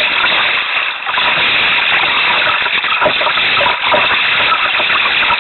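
Steady, loud rushing of choppy sea water around a canoe's hull, with a couple of brief splashes.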